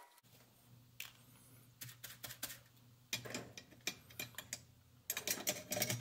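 Small hand tools clicking and clattering as they are handled on a workbench, in irregular groups that are busiest near the end. A low steady hum runs underneath.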